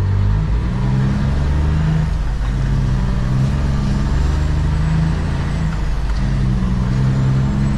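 Heavy road-train truck's diesel engine, heard from inside the cab, pulling away and accelerating; its note climbs and drops back several times as it goes up through the gears.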